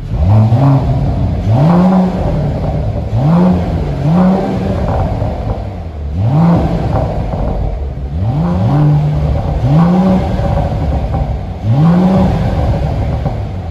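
Mercedes-AMG GT 43 4-Door Coupe's turbocharged 3.0-litre inline-six revved hard while stationary through a Fi valvetronic cat-back exhaust with the valves open in sport mode. It makes a series of quick throttle blips, about one every second and a half, each rising sharply in pitch and dropping back.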